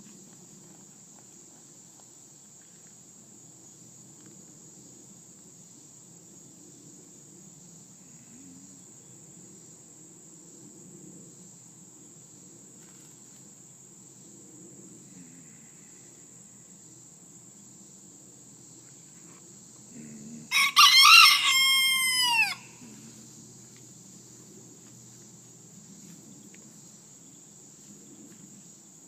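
A rooster crowing once, about two-thirds of the way through, its call falling in pitch at the end, over a steady high chirring of crickets.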